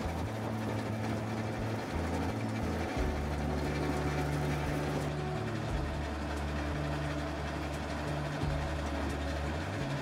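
Homemade cable car running along its wire cables: a steady low mechanical hum whose tones shift up and down in steps.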